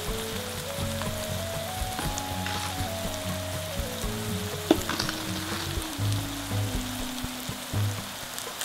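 Minced pork, onion and leek sizzling steadily in a frying pan, under soft background music with a stepped melody. A single sharp click comes about halfway through.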